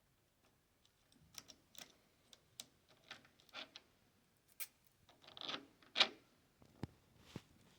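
Irregular clicks, taps and short scrapes of small plastic and metal parts being handled and fitted together while an umbrella holder is mounted on a golf caddy. The loudest knock comes about six seconds in.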